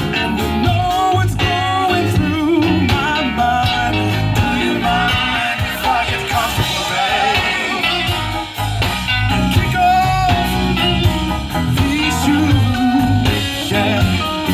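Blues band playing live: a singer over guitar, with a steady bass line and drums keeping a beat.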